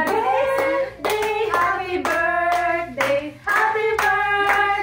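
Singing with hands clapping along in a steady beat, about two claps a second.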